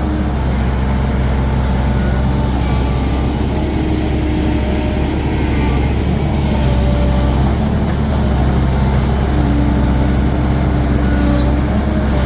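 Heavy diesel engine running steadily at an even pitch, with no change in speed.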